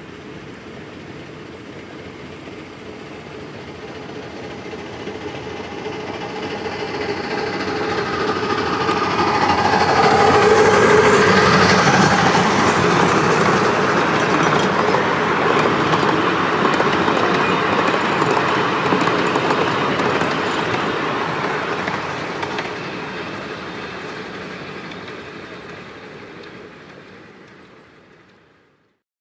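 Miniature railway train, a 'Tinkerbell'-class 0-4-2T tank locomotive hauling open passenger carriages, passing close by with a rumble and clatter of wheels on the track. It builds up, is loudest about ten to twelve seconds in with a brief ringing tone as it passes closest, then fades away.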